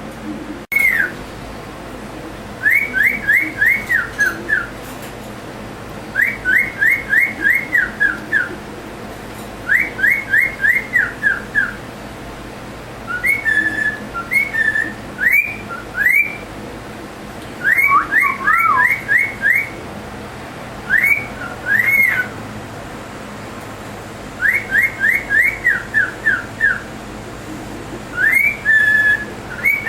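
Cockatiel whistling a repeated tune: phrases of five or six quick, high notes that step down in pitch, coming again about every three to four seconds, with a few varied calls in the middle.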